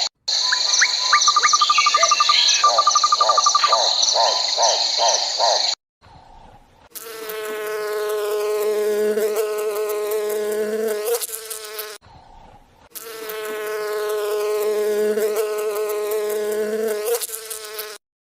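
Insects chirring in a dense, steady high drone, with rapid pulsed trills beneath it, for about six seconds. After a pause come two long, drawn-out pitched animal calls of about four seconds each, a few seconds apart.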